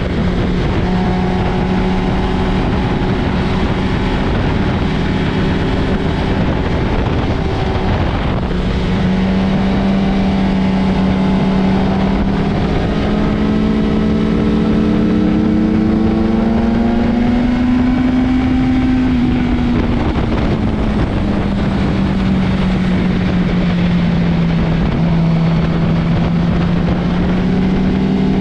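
Motorcycle engine running hard on a race track over a steady rush of wind noise. Its pitch drops briefly about eight seconds in, then climbs slowly for about ten seconds, falls away, and rises again near the end.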